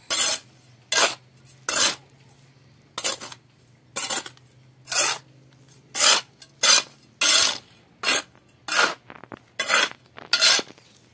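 Steel trowel scraping across a concrete slab as dry cement, sand and gravel are mixed by hand: a string of gritty scrapes, about one a second.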